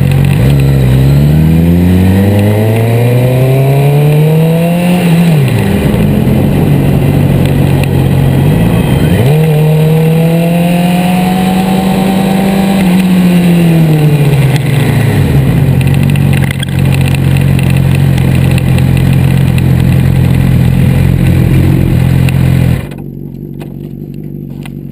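2011 Suzuki GSX-R600's inline-four engine, heard close up from the fairing with wind noise, pulls up in pitch and eases off twice. It then holds a steady note and falls away abruptly near the end.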